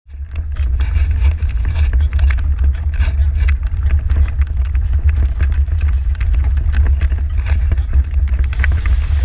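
Horse-drawn marathon carriage driven at speed over grass and dirt, heard from its rear step: a steady, heavy low rumble with frequent irregular rattles and knocks from the metal carriage.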